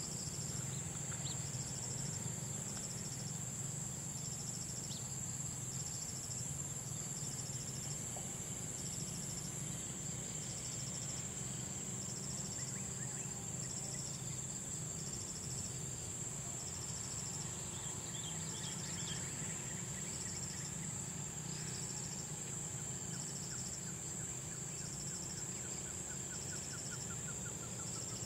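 Insects calling in the grass: one holds a steady, high-pitched drone while another chirps in even pulses about once a second, over a low steady rumble.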